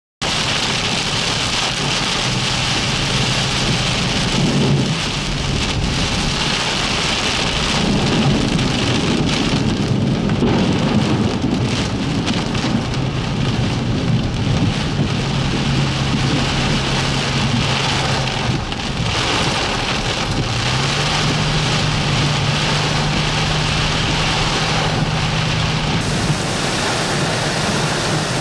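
Torrential tropical-storm rain pouring steadily, with a vehicle's engine humming underneath; the engine's pitch rises about two-thirds of the way through.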